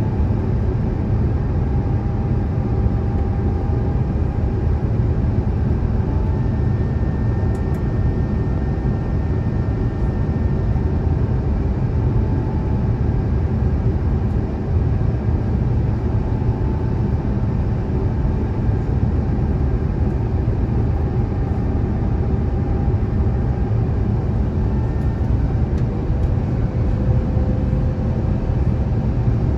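Airbus A350-1000 cabin noise on approach: a steady low roar of airflow and the Rolls-Royce Trent XWB-97 engines, with faint whining engine tones that drift slightly in pitch.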